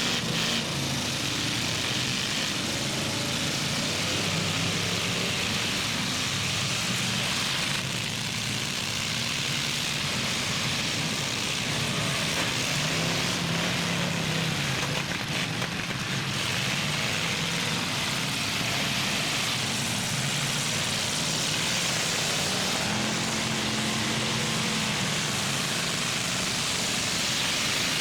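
Engines of several demolition-derby trucks and SUVs running and revving over a steady noisy din, their pitch rising and falling several times.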